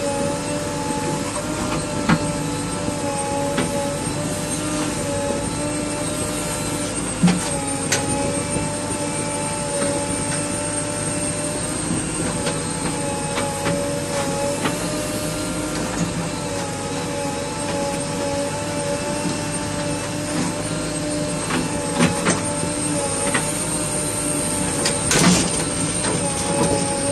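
JCB 3DX backhoe loader's diesel engine running steadily under load while the backhoe digs, heard from inside the operator's cab, with a few sharp knocks scattered through it.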